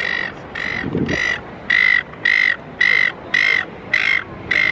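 A loud electronic beep repeating at an even pace, about two beeps a second, every beep the same pitch and length.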